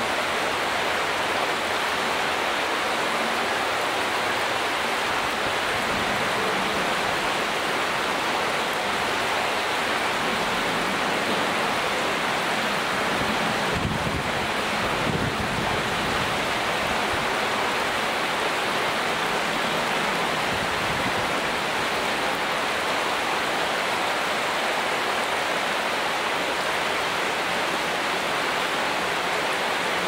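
Shallow stream water flowing and rippling over a sandy, pebbly bed: a steady, even rushing hiss, with a brief low rumble about halfway through.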